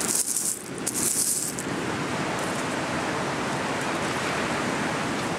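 Loose seashells clattering as a hand stirs through a pile of them, in two short bursts within the first second and a half. After that, a steady rushing noise.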